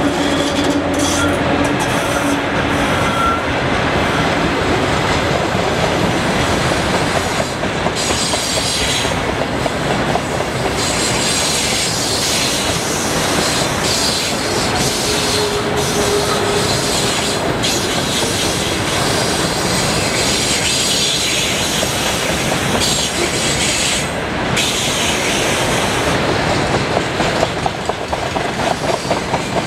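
Freight train of tank cars rolling past at speed: a steady rumble and clatter of wheels over the rails, with a brief thin wheel squeal about halfway. A low hum from the passing VL11M electric locomotive fades out in the first few seconds, and the clicks of wheels over rail joints grow sharper and more regular near the end.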